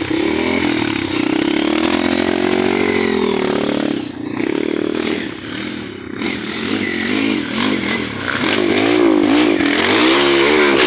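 Motorcycle engine revving hard on a trail, its pitch rising and falling with the throttle. The engine eases off briefly about four seconds in, then revs up and down rapidly near the end.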